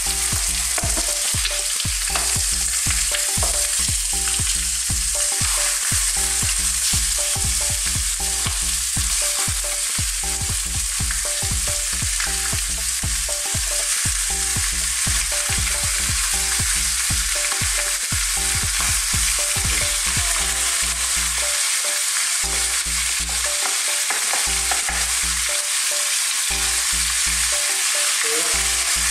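Pork ribs frying in hot oil in a pan: a steady sizzle throughout.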